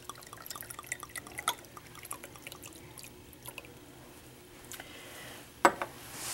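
Liquid poured from a glass volumetric flask into a small glass beaker, trickling and dripping in quick small drips that thin out about four seconds in. A single sharp knock follows a little before the end.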